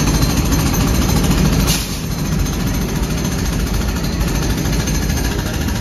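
Indian Railways diesel locomotive passing close by with its engine running loud. About two seconds in the noise eases a little as the locomotive goes by and its flat wagons roll past on the rails.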